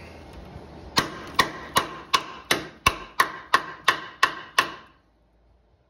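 A hammer striking metal eleven times at an even pace, about three blows a second, each blow ringing briefly.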